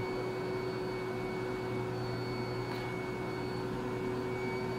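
Steady electrical hum of room tone, made of several fixed tones, with a faint light tick a little under three seconds in.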